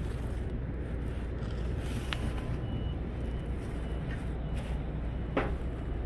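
Steady low outdoor rumble with wind on the microphone. Faint high beeps repeat evenly through the middle, and there are two sharp clicks, about two and five seconds in.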